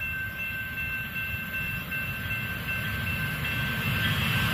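Amtrak Midwest passenger train led by a Siemens Charger diesel-electric locomotive approaching, its low rumble growing louder toward the end, with a few steady high ringing tones over it.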